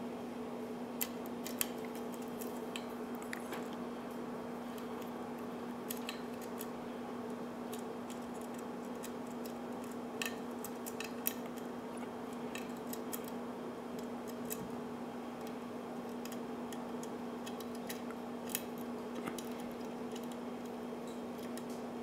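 Single-pin picking of a Fraim pin-tumbler padlock: a metal pick clicks and scrapes against the pins under tension, with scattered sharp little ticks over a steady low hum.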